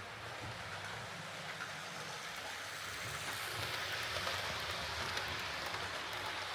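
Jouef TGV model train running along the track: a steady whirr and rattle of its motor bogie and wheels on the rails, a little louder from about halfway through. It runs a wee bit noisy, which the owner puts down to crude gearing and a low quality motor.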